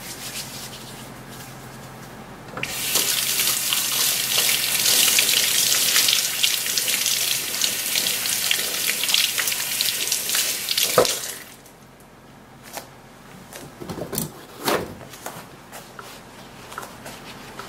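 Kitchen faucet running steadily over hands being washed in the sink. It starts about two and a half seconds in and shuts off sharply about eleven seconds in. After that come brief scattered rustles of a paper towel as the hands are dried.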